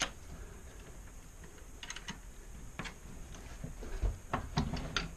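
A bench vise being swung round on its swivel base, with scattered short metallic clicks and knocks, several in quick succession near the end.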